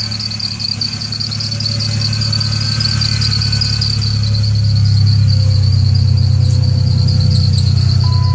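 A 1998 Ford Ranger's 3.0 L V6 runs with a bad misfire, its note growing louder from about two seconds in. A high, wavering squeal from the squeaky drive belt runs over it. A steady beep starts right at the end.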